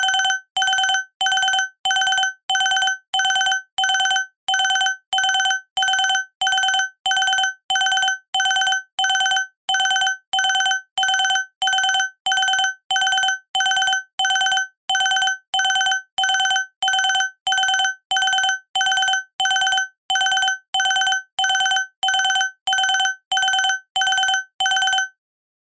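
An electronic alarm beeping: one steady high tone pulsed about twice a second, sounding the end of a 30-minute nap timer. It stops shortly before the end.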